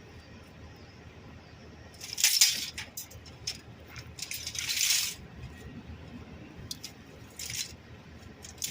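Rummaging through discarded items: bursts of rustling and light clinking, loudest about two seconds and again about five seconds in, with shorter bursts near the end.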